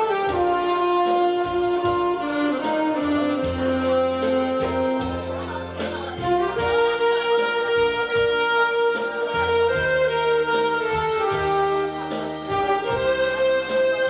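Two saxophones playing a slow melody in long held notes, over a recorded backing track with a steady drum beat and bass.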